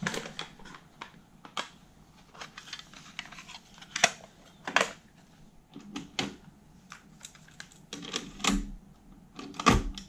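Irregular plastic clicks and clacks of a cassette tape being handled in its clear plastic case and loaded into the Sony TC-RX80ES cassette deck, with a sharper click near the end as the cassette door is pushed shut.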